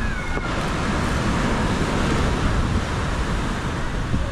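Steady rushing noise of wind on the microphone and surf on the beach.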